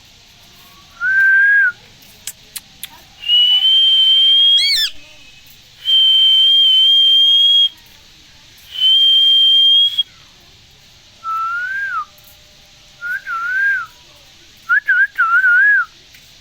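Clear whistling: a short bending note, then three long steady high notes, the first ending in a quick upward sweep, then a run of short warbling notes near the end.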